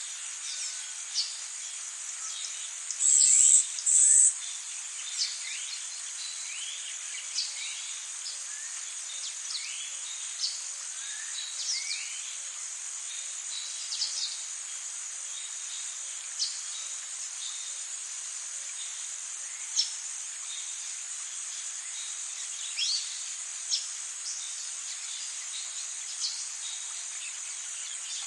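Forest ambience: a steady, high-pitched insect chorus with many short bird chirps and whistles scattered through it. About three seconds in, a loud, high-pitched call sounds twice in quick succession.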